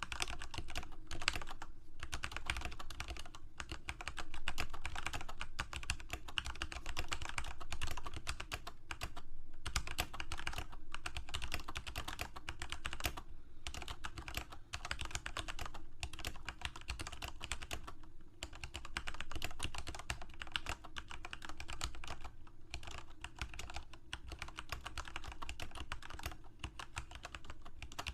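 Fast, continuous typing on a computer keyboard: a dense run of key clicks, broken by a few short pauses.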